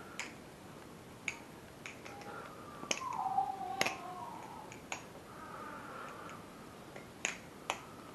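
BBBarfly Firefly balisong being flipped and handled, its handles clicking shut against each other and the blade with a string of sharp, irregular clicks, about ten in all, the loudest near the middle.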